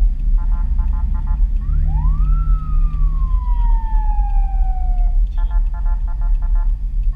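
Police patrol car siren giving an escort: a spell of rapid pulsing tones, then one long wail that climbs quickly and sinks slowly over about three seconds, then rapid pulsing again, over steady road and engine rumble inside the following car.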